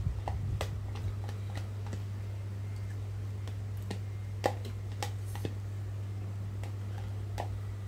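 Plastic spoon tapping and scraping against a clear plastic food container while eating, in irregular light clicks, the loudest about four and a half seconds in, over a steady low hum.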